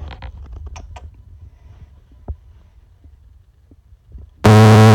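Low rumbling handling noise from the phone's microphone with a single sharp tap, then near the end a very loud, steady low buzz that lasts just under a second and cuts off abruptly.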